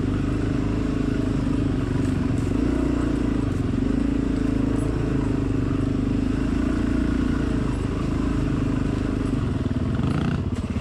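Dirt bike engine running steadily on a trail ride, its note wavering with the throttle. Near the end the engine note drops briefly and then picks back up.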